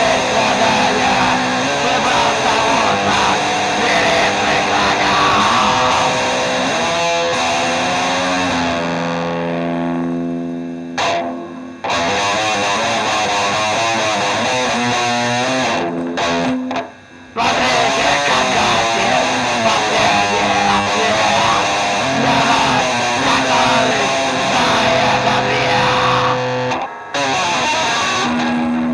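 Music led by distorted electric guitar run through effects, playing steadily and breaking off briefly three times.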